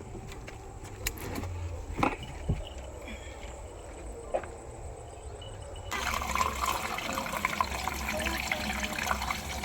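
Liquid pouring and splashing, starting suddenly about six seconds in over a low steady rumble, with a few clicks before it.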